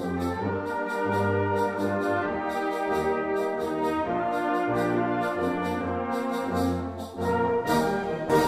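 Wind band playing a concert piece, with flugelhorns carrying the melody over sustained low brass bass notes. The band swells louder with sharper accents shortly before the end.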